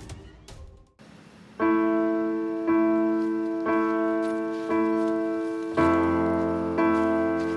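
Background piano music: chords struck about once a second in a slow, steady pattern, starting after a short lull about a second and a half in.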